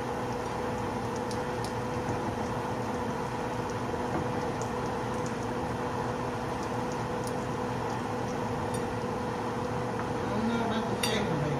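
Oil and flour drippings sizzling steadily in a skillet, with small crackling pops, over a steady hum. A clink near the end.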